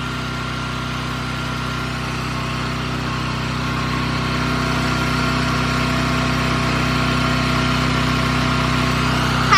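Small single-cylinder gasoline engine running steadily, driving a grain puffing extruder as corn grits feed through it. The sound grows slightly louder a few seconds in, as the puffed corn starts to come out of the die.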